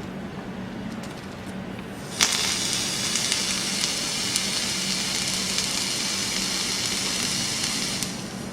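Coils of a rebuildable dripping atomizer sizzling and hissing as the box mod fires them during a vape. It starts suddenly about two seconds in, holds steady for about six seconds and fades out near the end.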